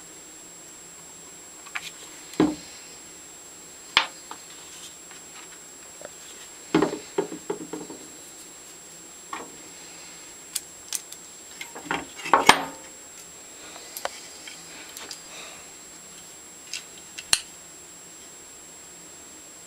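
Metal parts of a Stanley No. 113 compass plane handled and fitted by hand: scattered clicks, taps and light clinks of small metal pieces. A cluster of knocks comes about a third of the way in, and the loudest come a little past halfway.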